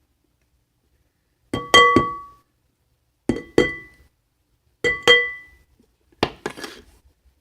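Glue bottle knocked against the rim of a mixing bowl to tap out the last of the glue, in four quick bursts of two or three knocks. Each knock leaves the bowl ringing briefly with a clear tone.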